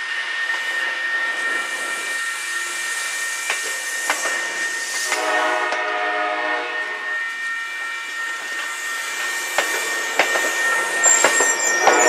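MBTA commuter rail bilevel coaches rolling past close by, wheels clicking over rail joints, with a steady high ringing tone from the level-crossing signals. A train horn sounds about five seconds in for two or three seconds, and again near the end as the passing sound grows louder.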